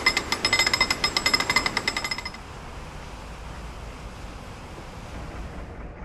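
Canal lock paddle gear being worked, its ratchet and pawl clicking rapidly in a ringing metallic clatter that stops about two seconds in. A quieter steady background hiss follows.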